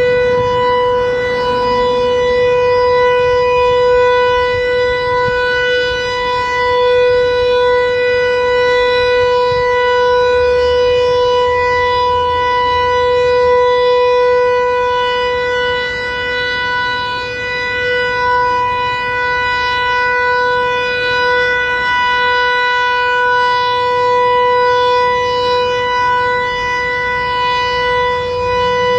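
American Signal T-121 Tempest eight-port omnidirectional mechanical siren sounding its steady Alert signal at full speed: one loud, unwavering tone, the warning signal used in a siren test.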